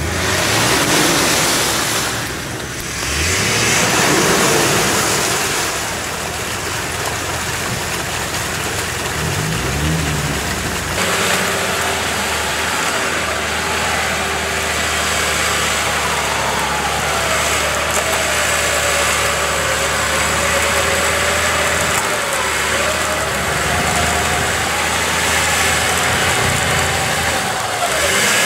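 Nissan Patrol 4x4's engine revving in repeated rising surges as it works through deep mud, then running on steadily with a whining tone that slowly rises and falls in pitch.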